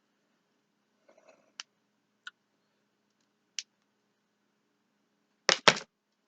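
Plastic action figures being handled: a few light, separate clicks, then a louder cluster of two or three quick knocks near the end.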